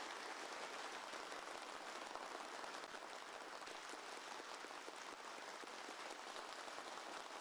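A large audience applauding: steady, dense clapping of many hands.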